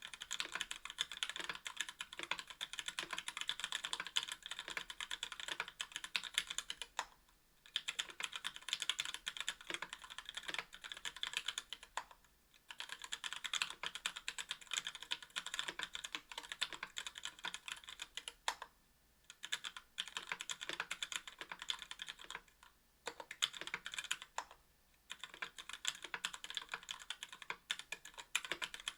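Fast continuous typing on a 60% mechanical keyboard with linear Gateron Merlot switches, an aluminium plate and case, and GMK keycaps: dense runs of keystroke clacks broken by brief pauses about every five seconds.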